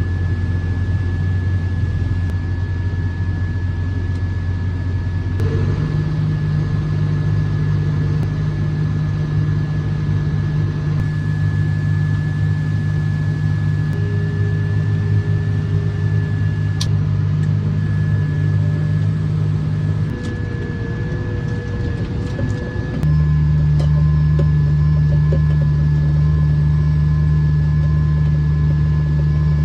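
Harvest machinery engine running steadily, with a thin steady whine above the drone. The engine note shifts in pitch about five seconds in, again around twenty seconds, and steps up louder a few seconds later.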